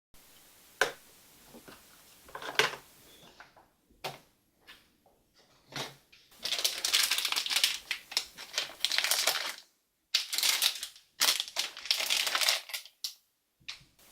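Toys in plastic packaging being handled: a few sharp clicks and knocks in the first half, then two long stretches of crinkling and rustling in the second half.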